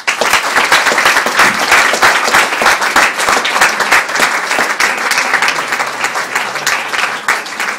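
Audience applauding: a dense burst of clapping that starts suddenly and carries on steadily, thinning slightly near the end.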